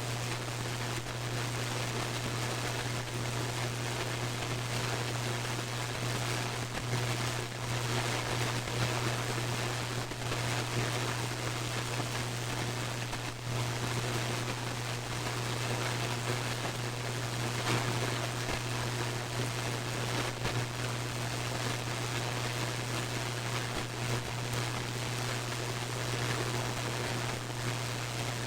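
Radio receiver tuned for lightning detection: a steady hiss of static over a constant low hum, broken by many brief crackles of static, each one a lightning discharge picked up by the radio.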